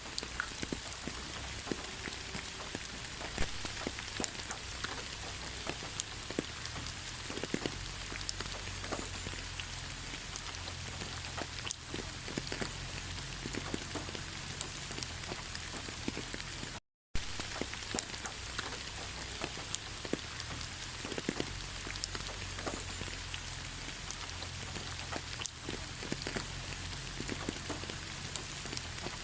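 Steady rain falling: an even hiss dotted with many sharp drop ticks, over a low steady rumble. The sound drops out completely for a split second about halfway through.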